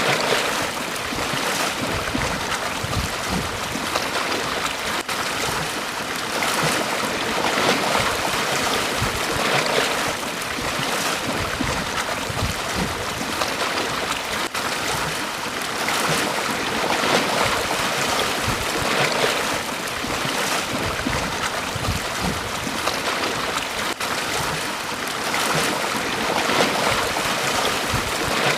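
Small waves breaking and washing on a beach, a continuous rush of surf that swells every few seconds.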